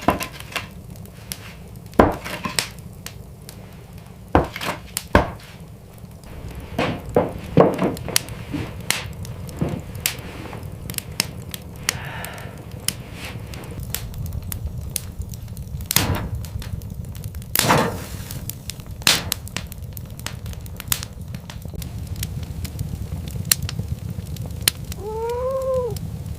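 Irregular knocks and cracks, some sharp and some in quick clusters, over a steady low rumble, with one short rising-and-falling animal call near the end.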